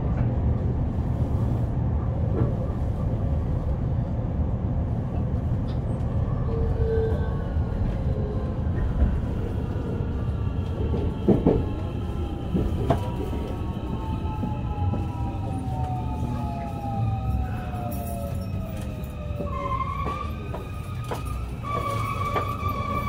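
JR West 223 series 2500-subseries electric train heard from on board, with the low rumble of running and the Toshiba IGBT-VVVF inverter's whine falling in pitch as the train brakes. Near the end a loud, steady, high brake squeal sets in as the train comes to a stop.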